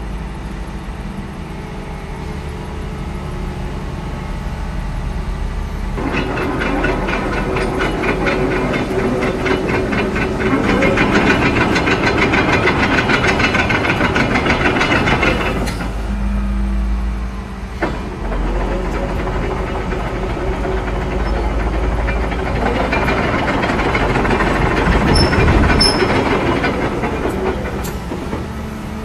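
2017 Volvo EC250ENL crawler excavator's diesel engine running, with two long spells of louder engine and hydraulic hiss and whine as the boom and arm are worked: one from about six seconds in to about sixteen, the other from about eighteen seconds to near the end.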